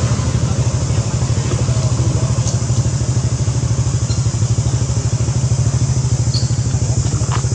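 A small engine idling steadily with a fast, even throb.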